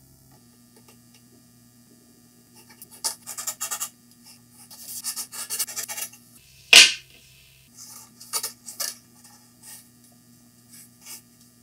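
Mechanical pencil scratching short marking strokes on a laminated Douglas fir board, in several quick bursts. About two-thirds of the way through comes one loud, sharp knock on the wood.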